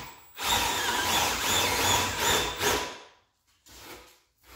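Milwaukee M18 brushless compact drill running a 3/4-inch spade bit in a hole in a wooden beam, its motor whine wavering, for about two and a half seconds until it stops about three seconds in. A few soft brushing sounds follow.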